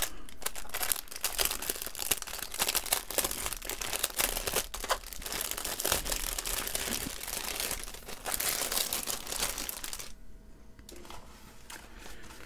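Clear plastic packaging crinkling and crackling as hands turn over and handle a plastic-wrapped strip of diamond-painting drill bags; the crinkling dies down about ten seconds in.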